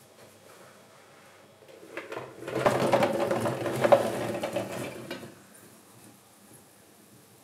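Halved cherry tomatoes tipped from a dish into a frying pan of liquid, tumbling, knocking and splashing for about three seconds before it goes quiet.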